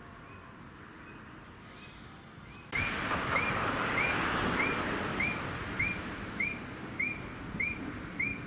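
Railway level-crossing warning bell ringing in a steady repeat of about two strokes a second. It is faint at first, then much louder from about three seconds in, over a rushing noise.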